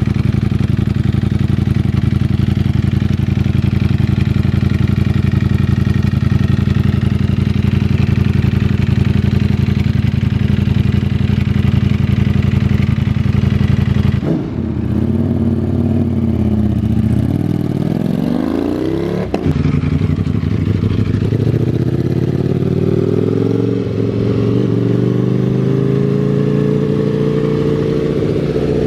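Ducati Panigale V4S's V4 engine through a Termignoni 4 Uscite full titanium exhaust system, idling steadily for about the first half. Then the pitch dips and climbs as it is revved, and near the end it rises slowly as the bike pulls away under power.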